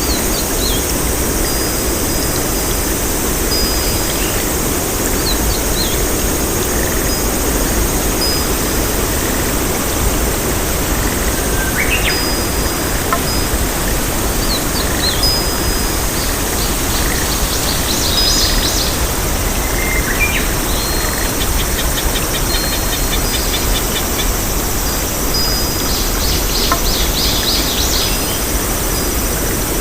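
Nature ambience: a steady rushing noise, like running water, with small birds chirping and giving short trills over it, a few calls at a time.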